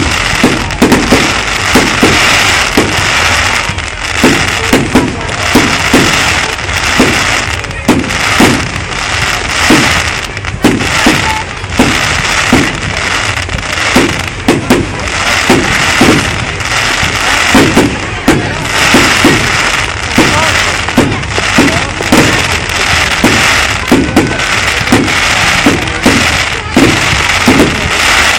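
Fireworks going off in a dense barrage: a rapid run of sharp bangs, roughly one to two a second, over a continuous crackle and hiss.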